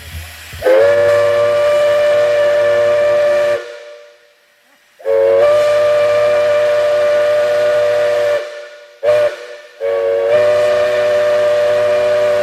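A five-chime steam whistle of unknown make blowing a steady multi-note chord in three long blasts, with a brief toot between the second and third, over a hiss of steam.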